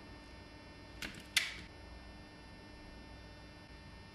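Two sharp clacks of hand tools and walkie-talkie parts being handled and set down on a wooden workboard, about a second and a second and a half in, the second louder with a brief ring, over a faint steady hum.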